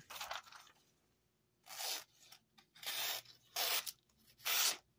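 Small carbon-steel Case pocketknife blade slicing through a sheet of magazine paper in about five short strokes, each a brief papery tearing hiss. The edge is dulled after cutting cardboard, so it drags and tears through the paper rather than gliding.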